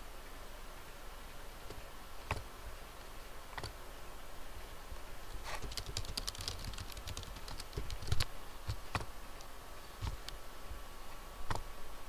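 Typing on a computer keyboard: a quick run of keystrokes about halfway through, with separate single clicks scattered before and after.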